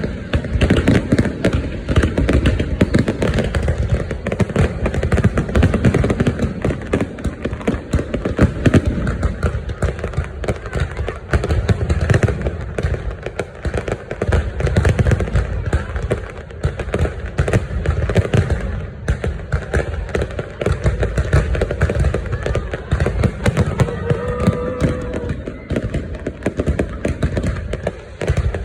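New Year's Eve fireworks going off without a break: a dense, continuous stream of bangs and crackling, with deep booms underneath.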